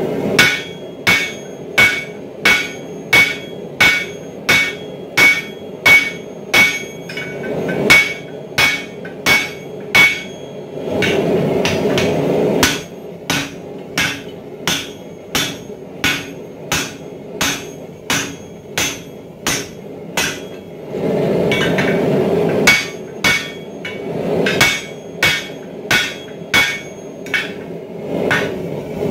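Hand hammer striking a red-hot steel hammer head on a swage block, about two blows a second, each with a bright metallic ring. The strikes pause a few times for a second or two of steady rushing noise, once near the start and again around a third and three-quarters of the way through.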